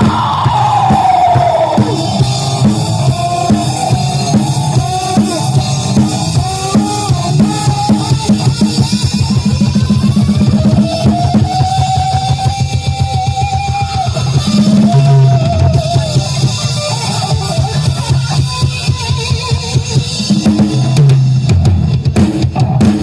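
Live rock band playing an instrumental passage: a drum kit with a fast, driving bass drum and snare under a sustained lead line that bends and wavers in pitch.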